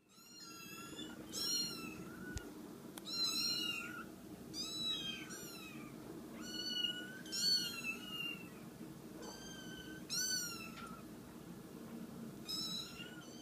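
Four-week-old kittens mewing over and over, about ten short, high-pitched cries, some overlapping as more than one kitten calls at once. These are hunger cries.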